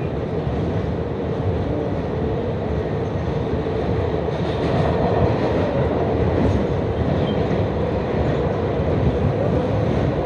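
New York City subway train running along the track: a steady, unbroken noise of wheels on the rails.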